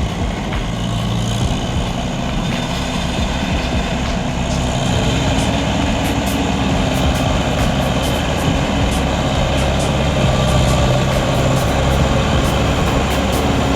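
Diesel engine of a loaded forestry forwarder running steadily under load as it drives through deep mud. The engine grows a little louder partway through, and light clicks and knocks come through over it.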